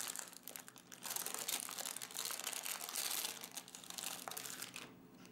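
Baking paper crinkling and crackling in fits as it is peeled back from a sheet of crisp, freshly baked lentil chips, dying away shortly before the end.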